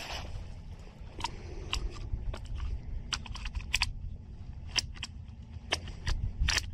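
Handling noise from a Steyr Scout rifle and its sling: a dozen or so scattered sharp clicks and rattles, over a low rumble of wind on the microphone.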